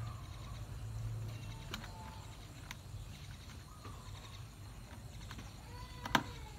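A young monkey giving a few faint, short squeaks, with light clicks and one sharp knock about six seconds in, over a low steady hum.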